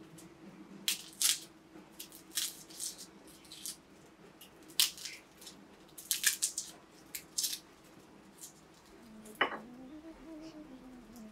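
Kitchenware being handled: scattered sharp clicks and clinks of utensils, pots and dishes. A faint wavering tone comes in about nine and a half seconds in.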